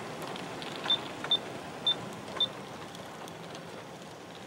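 G-scale model train with three Aristo-Craft RS3 diesels rolling past on track: a steady running hum of wheels and motors with faint clicks. Four short high beeps sound in the first two and a half seconds.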